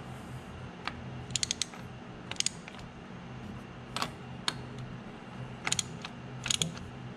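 Ratchet wrench clicking in short bursts of a few clicks, with pauses between, as a deep socket tightens a rebuilt fuel injector into a small diesel engine's cylinder head. A steady low hum runs underneath.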